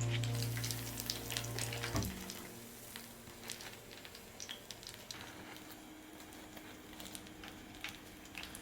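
Oil sizzling with many irregular small crackles, as when tempura fries in hot oil. Background music plays at first and cuts off about two seconds in.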